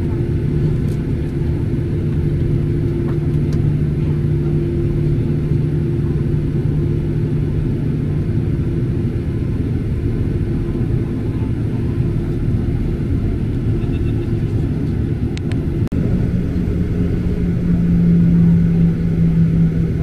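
Boeing 737-800's CFM56-7B jet engines heard from inside the cabin while the airliner taxis: a steady low rumble with a constant hum. About three-quarters of the way through, the hum steps up slightly in pitch and grows louder for a few seconds.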